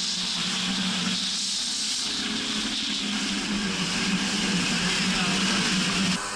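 Bombardier jet ski's engine running steadily at speed, a constant drone under the rushing hiss of spray and wind on the craft-mounted microphone. Shortly before the end the sound cuts abruptly to a quieter, different drone.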